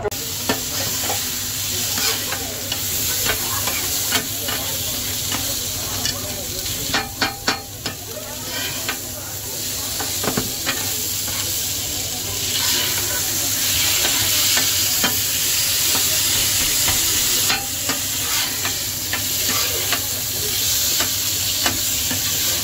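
Chopped meat sizzling on a flat-top griddle while a metal spatula scrapes and taps through it and against the steel plate. There is a quick run of taps about seven seconds in.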